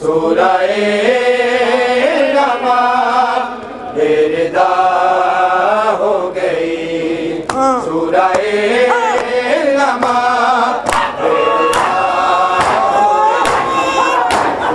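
Noha, a Shia mourning lament, chanted by male reciters in long, wavering sung lines. From about eleven seconds in, sharp slaps come about once a second over the chanting: mourners striking their chests in matam.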